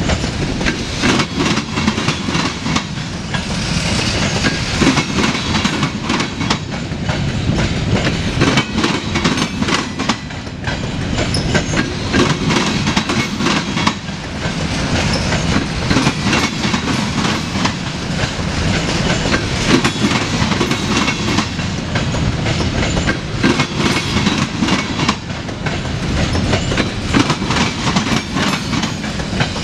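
Freight train of covered hopper cars rolling past: a loud, steady rumble with wheels clicking and clacking over rail joints.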